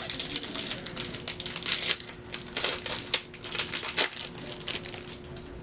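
Foil trading-card booster pack wrapper crinkling and crackling as it is handled and torn open, in irregular crisp bursts that die away about a second before the end.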